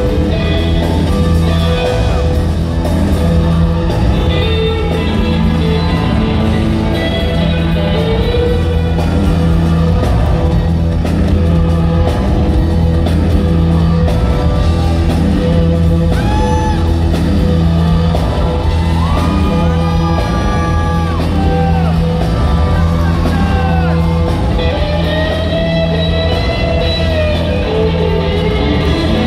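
Live electric blues band playing loud: electric guitar, Hammond organ and drums with a steady bass line, heard from the audience.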